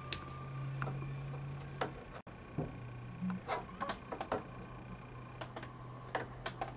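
Small plastic clicks and taps as a Playmobil skeleton figure is handled and knocked against the plastic toy house, scattered irregularly over a steady low hum.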